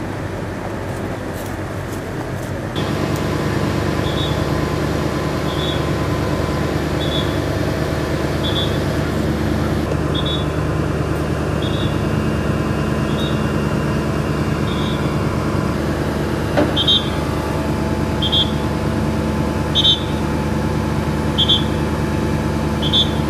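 Aerial ladder fire truck running, its engine speeding up about three seconds in as the ladder is worked. From then on a short high warning beep repeats about every second and a half while the ladder moves, with a single clunk near the middle.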